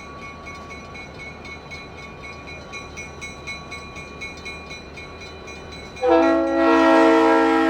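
A train running by with a steady rumble and regular clicking about four times a second, then about six seconds in its horn sounds suddenly and loudly, a chord of several notes held on.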